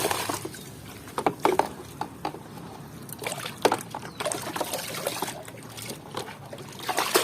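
A plastic toy being handled and washed in water: scattered light knocks and clicks with small splashes and a faint trickle.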